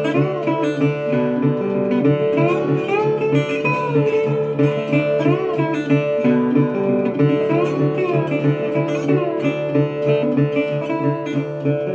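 Acoustic guitar playing an instrumental break of a folk song, a repeating bass pattern under melody notes that bend and slide in pitch.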